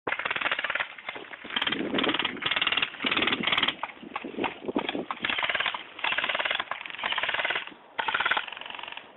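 Airsoft guns firing on full auto: repeated short bursts of rapid clicking shots, about nine bursts, each under a second long.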